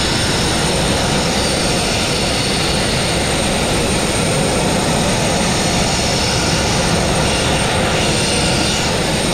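Abrasive blast nozzle spraying fine crushed glass grit against a narrow boat's steel hull, a steady loud hiss of compressed air and grit striking the metal as it strips old paint.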